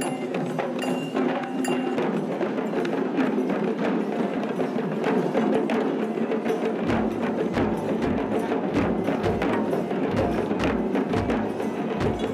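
Ceremonial drumming: a dense run of fast, sharp drum and stick strokes, joined about seven seconds in by a deep drum beating a steady pulse.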